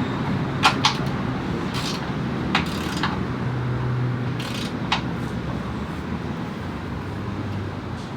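Scattered sharp metallic clicks and clinks of hand tools on bolts while engine mounts are tightened, over a steady low hum. The clicks come in the first five seconds, and the rest holds only the hum.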